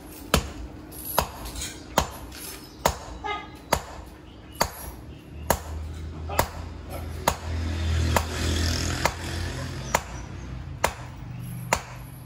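Hammer blows on steel, struck at an even pace a little over once a second, each a sharp ringing clank. A low hum swells and fades in the middle.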